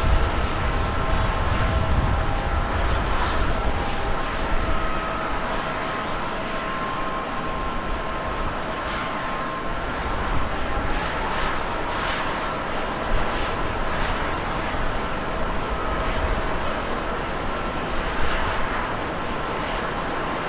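Twin turbofan engines of a Boeing 777-300 airliner running steadily as it rolls along the runway: a continuous jet rush with a steady fan whine on top. A deeper rumble fades out about five seconds in.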